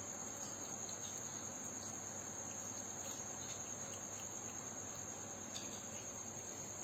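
Crickets trilling steadily, one continuous high-pitched tone, with a few faint soft clicks.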